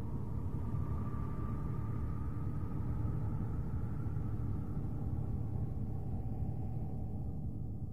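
Spacecraft recording of electromagnetic vibrations in space converted to audible sound: a steady low rumbling drone with faint, wavering higher tones that drift slowly upward above it.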